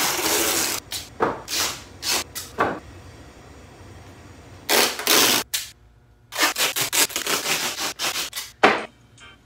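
Hand work on a homemade mount, heard as rasping, ripping strokes: one longer rip at the start, a few short ones, then a quick run of short strokes near the end.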